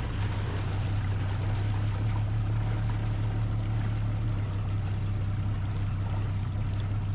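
Bass boat's outboard motor running at low, no-wake speed, a steady low hum, with water noise along the hull.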